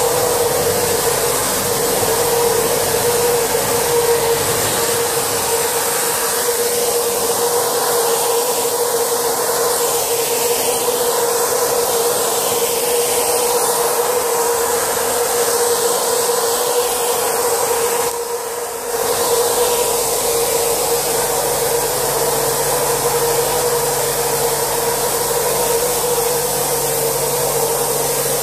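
Pneumatic insulation-spraying (flocage) machine blowing fibrous material out through a hose: a steady rushing hiss with a constant whine under it, dipping briefly about two-thirds of the way through.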